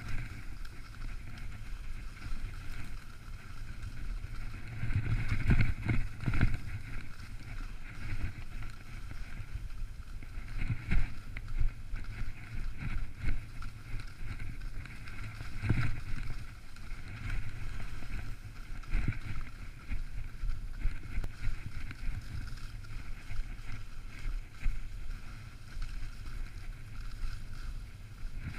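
Skis sliding over crusty, wind-packed snow, with wind rushing over the camera microphone and several louder knocks and scrapes along the way.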